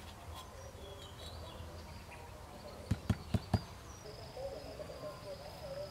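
Four quick sharp clicks of clay bricks knocking together as they are set by hand, about three seconds in, over a background of bird chirps; a steady high insect call joins about four seconds in.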